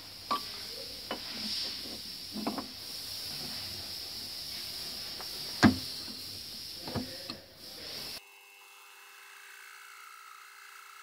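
Sharp metal clanks and knocks as a steel workpiece and lathe dog are fitted between centers on a metal lathe, over a steady hiss, the loudest knock about five and a half seconds in. About eight seconds in it switches abruptly to the lathe running and the tool cutting the steel, a steady hum with a thin whine.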